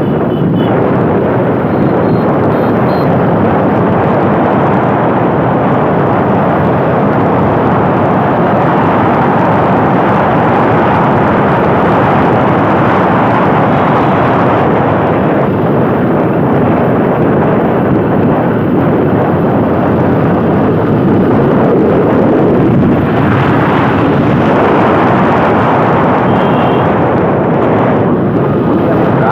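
Steady rush of wind buffeting the microphone, with engine and road noise from a moving two-wheeler under it.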